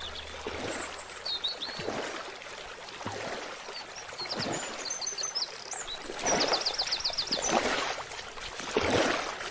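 Water trickling and splashing over rocks, with small birds chirping several times high above it, including a quick run of about eight chirps a little past the middle.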